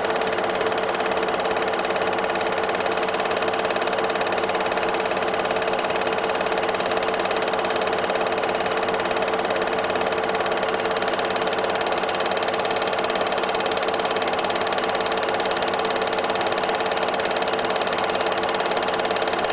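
Film projector running: a steady mechanical whir and fast clatter with a constant hum.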